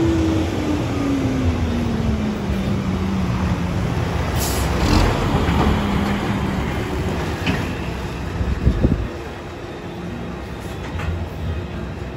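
Cummins N14 diesel of an International truck running under a load of sand, its engine note falling steadily over the first few seconds. A brief hiss comes about four and a half seconds in and a couple of knocks near nine seconds.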